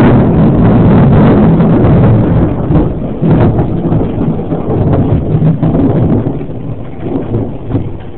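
Thunder: a sudden loud crack that breaks into a deep rumble, holding loud for about three seconds, then rolling and fading unevenly with a few smaller swells near the end.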